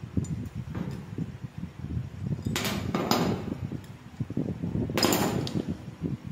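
Rusty steel parts of a hand-operated animal hair clipper clinking and scraping against each other as the clipper is taken apart by hand, over a low rustle of handling. There are several short scrapes, the loudest a little before the middle and about five seconds in.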